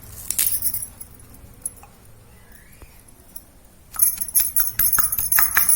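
Spices and herbs being pounded with a pestle in a mortar: a couple of knocks at the start, then, about four seconds in, a fast run of sharp, ringing strikes.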